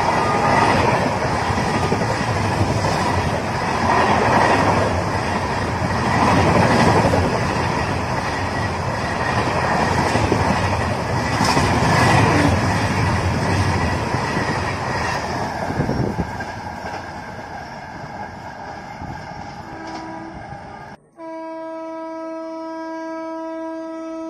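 Coaches of an express passenger train passing close at high speed: a dense rush of wheel and rail noise with clatter over the rail joints, swelling and easing every few seconds, then fading as the tail of the train goes by. Near the end, after a cut, an approaching WAP7 electric locomotive sounds its horn in one steady, held blast.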